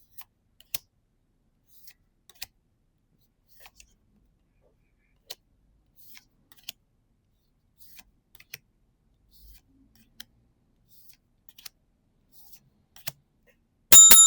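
Soft, scattered clicks of trading cards being handled and flipped one at a time. Near the end comes a loud ding, a bell tone that rings out and fades over about two seconds.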